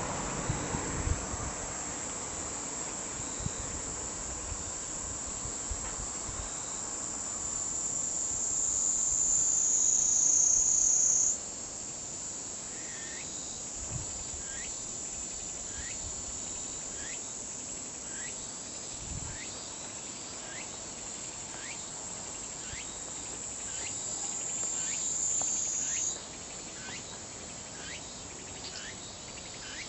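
Kaempfer cicada (niinii-zemi) singing a continuous, high-pitched buzz that swells louder and then cuts off sharply, about eleven seconds in and again near the end. A faint series of short falling chirps repeats about once a second through the second half.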